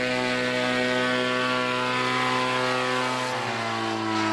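Paramotor engine and propeller running steadily in flight, a continuous buzzing drone whose pitch dips slightly about three seconds in.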